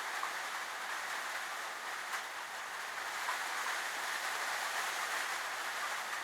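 Steady, even hiss of background noise with no hum or tone in it, and one faint click about two seconds in.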